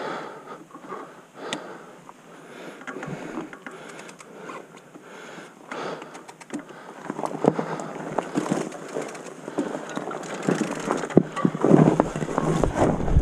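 Mountain bike riding over leaf-covered forest singletrack: tyres crunching over leaves and roots, with frequent clicks and rattles from the bike. The sound grows louder and rougher in the second half.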